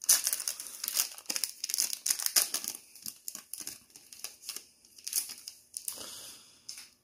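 Foil wrapper of a Pokémon TCG Shining Fates booster pack being torn open and crinkled. There is a dense crackle for about the first second and a half, then scattered crinkles and clicks as the cards are drawn out of the wrapper.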